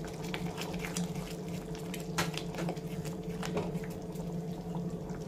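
Thick curry gravy simmering in a pan, bubbling with scattered small pops, stirred with a silicone spatula at first. A steady low hum runs underneath.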